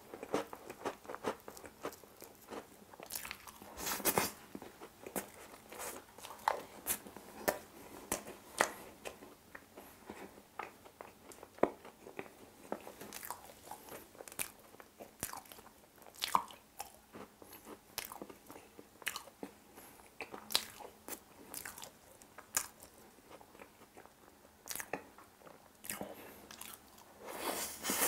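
Close-miked eating sounds: chewing mouthfuls of Oreo icebox cake, with small crunches and wet mouth smacks, mixed with spoons scraping and tapping on the plate as pieces are cut and scooped. Irregular short clicks throughout, several a second at times.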